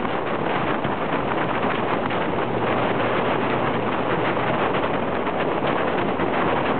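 Steady rush of wind buffeting a motorcycle-mounted camera's microphone at riding speed, mixed with the bike's engine and tyre noise.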